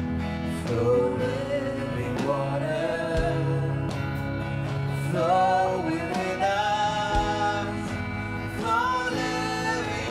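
A gospel song performed live: a singer holds long, gliding melody lines over a band with steady bass notes.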